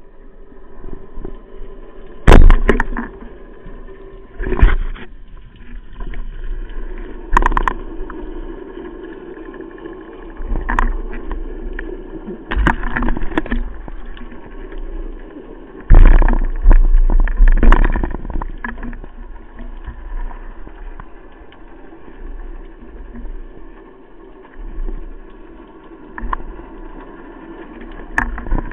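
Muffled water noise heard through an underwater camera housing as a spearfisher swims up to the surface, with several irregular loud knocks and swishes of water.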